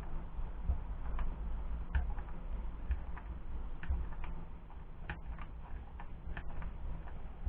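Small metal bolt being turned slowly by hand into holes drilled in plywood to cut threads, giving irregular light clicks and ticks, about one or two a second, over a steady low hum.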